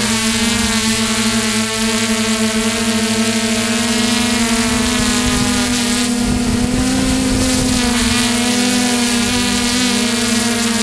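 Drone motors and propellers heard from the onboard camera: a loud, steady buzzing hum whose pitch wavers and rises slightly a little past halfway as the craft manoeuvres, with wind rumbling on the microphone.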